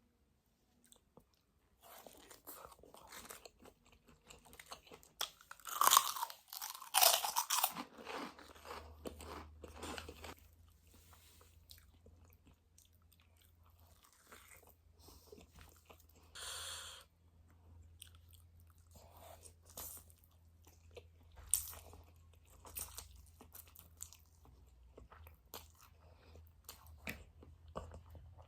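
Close-miked eating of spicy instant noodles with krupuk crackers: crunching bites and chewing, the loudest crunches about six to seven seconds in. A faint low hum sets in around nine seconds.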